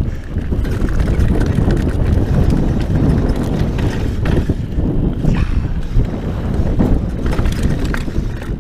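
Scott Genius mountain bike being ridden over a rough dirt and rock trail: tyres on dirt, with steady rattling and knocks from the bike throughout. Wind rumble on the microphone runs under it.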